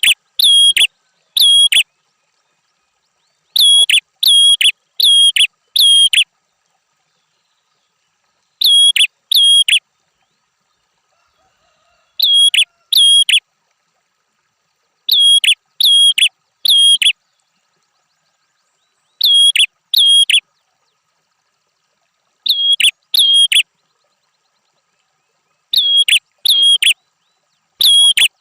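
Prenjak songbird calling in bursts of three to five sharp, identical high notes, each burst followed by one to three seconds of silence.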